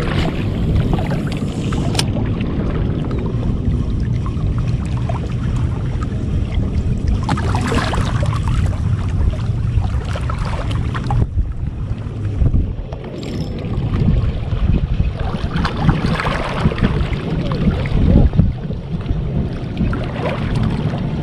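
Wind rumbling and buffeting on the microphone over the wash of sea water at a rock seawall, with a single sharp click about two seconds in.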